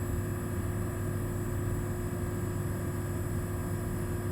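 LG inverter air conditioner's outdoor unit running, compressor and fan giving a steady hum with a low drone and a constant higher tone. The system is running low on refrigerant, its suction pressure near 60 psi instead of about 120.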